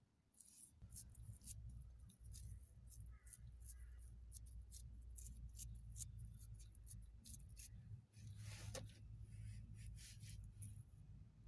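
Faint wet squelches and clicks of hands pressing and smoothing the wet clay lining around a forge's tuyere opening, over a low steady hum.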